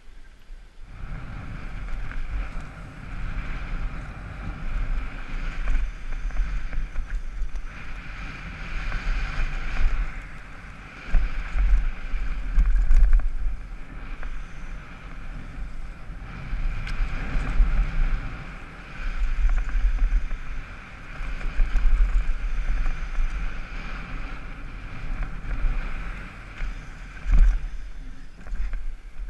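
Wind buffeting a helmet-mounted camera and the rush of a downhill mountain bike's tyres over dirt and gravel at speed, a low rumble that surges and eases every second or two over a steady hiss.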